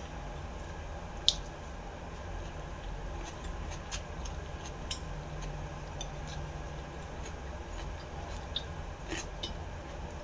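Someone eating noodles with a fork: quiet wet chewing and a few sharp clicks of the metal fork against the plate, the loudest about a second in, over a steady low hum.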